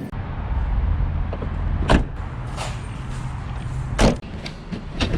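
Low steady rumble of a car, with three sharp knocks or thumps about two, four and five seconds in, such as doors or loaded items being shut.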